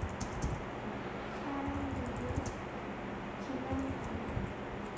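Typing on a computer keyboard: irregular light key clicks over a steady background hiss.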